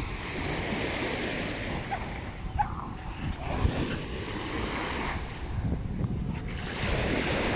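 Small waves breaking and washing up onto a sandy shore, with wind rumbling on the microphone.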